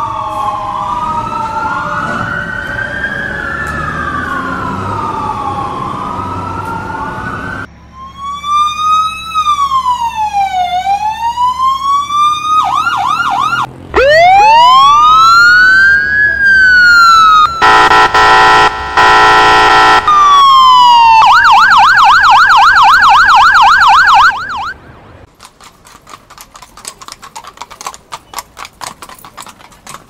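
Emergency-vehicle sirens: several overlapping wailing sirens at first, then one loud siren running through slow wails, rising sweeps, a steady horn tone and a rapid yelp, cutting off suddenly about 25 seconds in. After that comes a faint rapid clatter of horse hooves clip-clopping.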